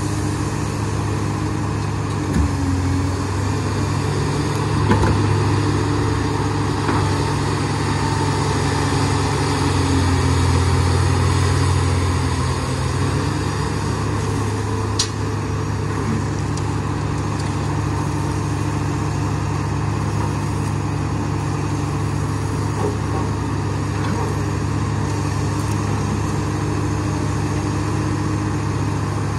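Diesel engines of a Komatsu PC200 hydraulic excavator and a Nissan Diesel dump truck running steadily. The excavator's engine works harder for several seconds as it digs and swings loads of sand into the truck bed. There are a few sharp knocks, the clearest about halfway through.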